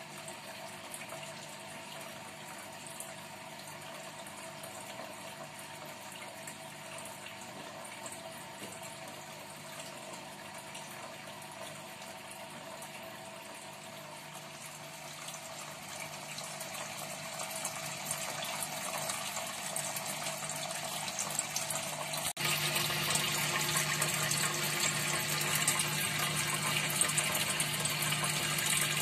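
Water pump in a turtle tank running, with steady flowing water and a low hum. It grows louder from a little past halfway and steps up suddenly about three-quarters of the way in.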